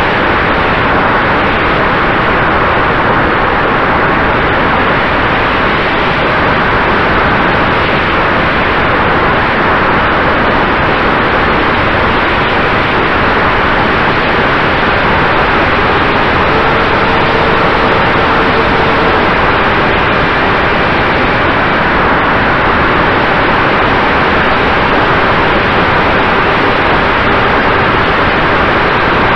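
Steady, loud rush of wind and motor noise on the onboard camera microphone of an FPV model aircraft in flight, with a faint steady whine under it.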